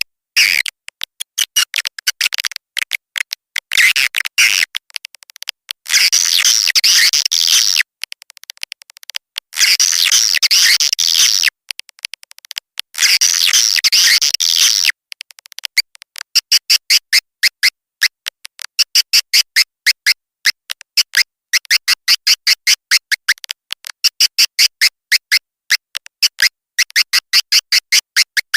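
Swiftlet lure call recording: fast high chirps and twitters, with three long buzzy trills in the first half, then a steady run of rapid short chirps in clusters. This is the calling sound swiftlet farmers play to attract swiftlets to a nesting house.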